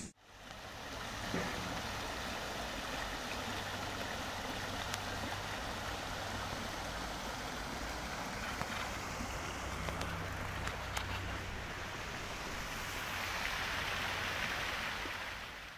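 Steady outdoor street ambience: an even hiss with a low rumble underneath and a few faint ticks.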